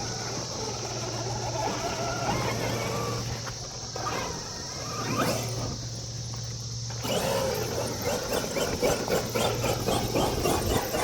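Traxxas XRT RC truck's brushless electric motor whining, its pitch rising and falling as the throttle is worked, with a sharp rising whine about five seconds in. From about seven seconds in, dense clicking and rattling joins the whine.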